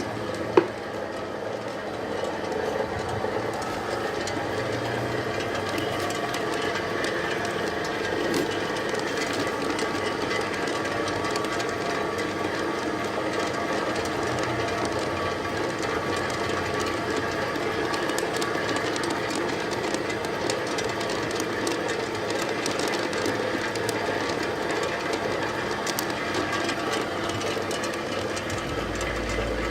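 Horizontal pellet mill running steadily, a continuous mechanical noise with a sharp click about half a second in.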